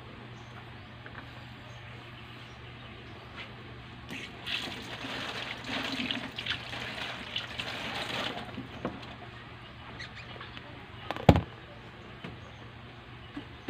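Water splashing and running for about four seconds, then a single sharp knock a couple of seconds later, over a steady low hum.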